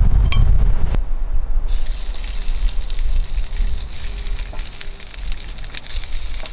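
A hot skillet on a gas stove sizzling with a steady hiss and small crackles as cooked rice is tipped into it, after a low rumble in the first second.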